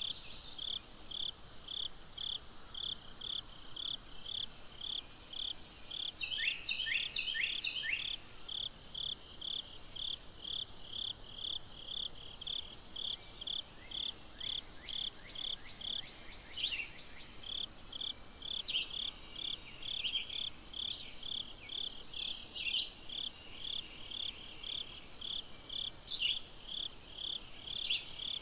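A chirping insect calling in a steady, even rhythm of short high chirps, about two a second. About six seconds in, a bird gives a quick run of downward-sliding whistled notes.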